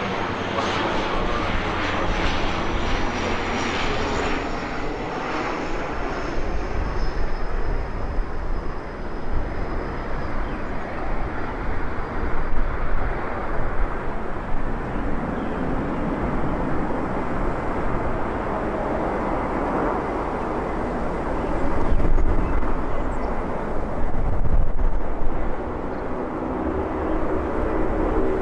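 Jet aircraft engines running: a steady loud rush with a thin high whine that slowly falls in pitch and fades over the first half, swelling louder a couple of times later on.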